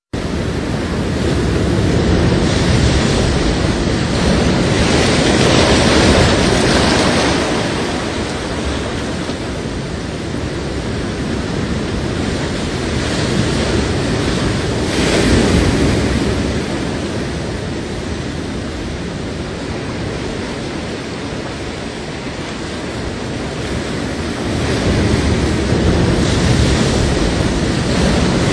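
Ocean surf washing onto a beach, a steady rush of noise that swells and fades as waves break.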